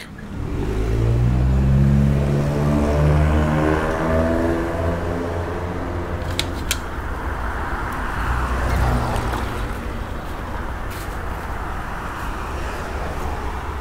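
Road traffic on a city boulevard: a vehicle's engine rises in pitch as it accelerates in the first few seconds, followed by a steady hum of passing cars and tyres. Two brief sharp clicks about six and a half seconds in.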